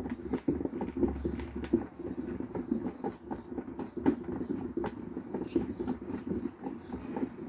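Carp boilies rolling and tumbling around inside a plastic bucket as it is swirled, a continuous dense rattle of many small knocks. The baits are being rolled in powder to build up their coating.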